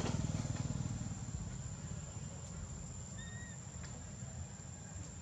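A motorcycle engine's low pulsing fades away over the first couple of seconds, leaving a faint low rumble. A single short high chirp sounds about three seconds in.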